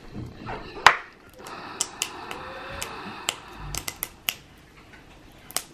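Sharp plastic clicks and taps, about ten of them and the loudest about a second in, with a faint rustle of plastic between, as a small plastic toy capsule is handled and worked open.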